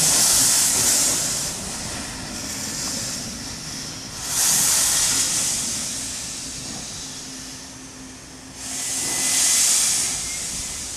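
Wee Georgie Wood steam locomotive venting steam in three loud hissing bursts about four seconds apart, with a softer hiss between them.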